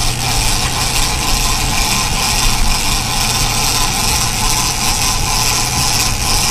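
Boat engines running steadily under way, with wind and rushing water making a steady hiss over the low engine hum.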